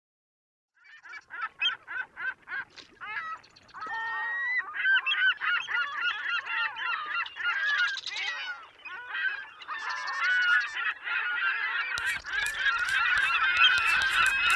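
A flock of gulls calling. It starts as a quick series of short yelping calls and thickens into a dense chorus of overlapping calls. Near the end a low rumble and crackle joins in.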